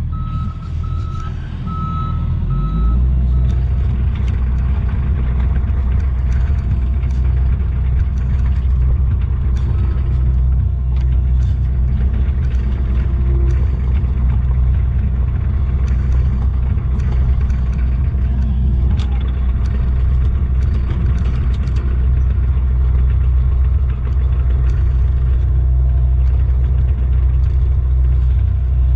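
John Deere 50G compact excavator's diesel engine running, heard from inside the cab. A high beeping sounds for the first few seconds while the engine dips, then the engine comes back up about three seconds in and runs steadily with a hydraulic whine.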